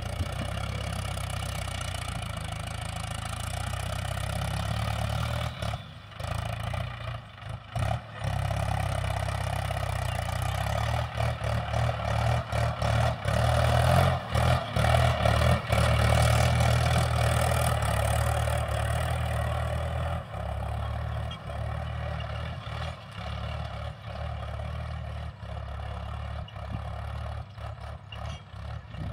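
Mahindra tractor's diesel engine running steadily under load as it pulls a cultivator through the soil. It grows louder as the tractor passes close, about halfway through, then fades as it drives away.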